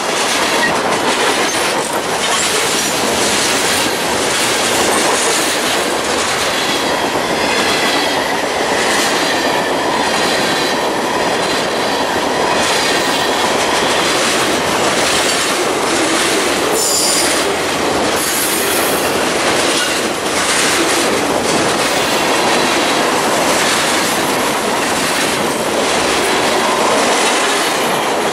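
A train's railroad cars rolling steadily past: the wheels rumble and click over the rail joints, and brief high wheel squeals come several times, sharpest about two-thirds of the way through.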